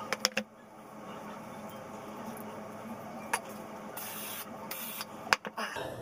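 Hair crimper being handled and clamped on hair: a few sharp clicks near the start, one a little past the middle and a cluster near the end, with two short hisses about four seconds in, over a low steady hum.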